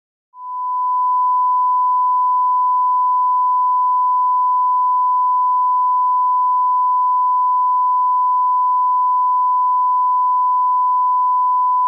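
Line-up test tone of the kind played with colour bars: one loud, steady, unbroken beep that starts a moment in.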